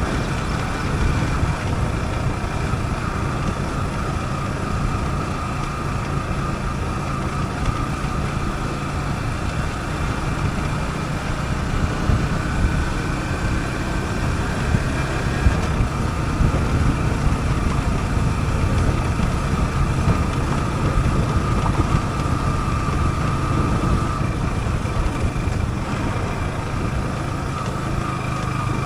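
Yamaha YZF-R15's single-cylinder engine running at steady, moderate revs as the motorcycle is ridden off-road. Its pitch creeps up slowly around the middle, then drops back about halfway through.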